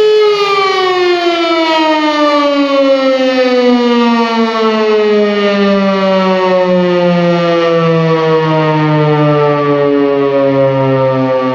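Civil defence siren winding down: its steady tone starts to fall about a quarter second in, then keeps sliding slowly and evenly lower in pitch.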